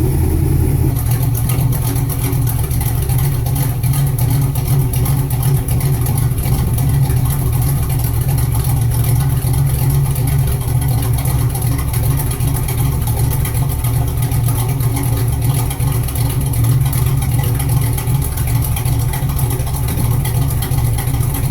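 1972 Chevrolet Nova SS V8 running through stock cast-iron exhaust manifolds and factory-style exhaust pipes while the car drives at a steady, moderate throttle.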